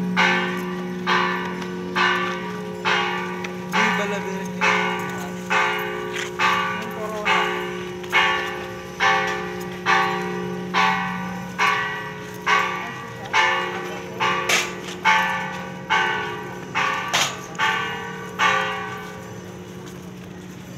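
Church bells being struck, about one ringing strike a second. The strikes come closer together for a few seconds past the middle, then stop a couple of seconds before the end as the last ring fades.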